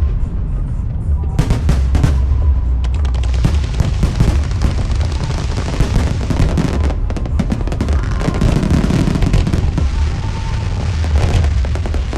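Fireworks going off in quick succession: many sharp bangs and dense crackling over a heavy low rumble, with music playing.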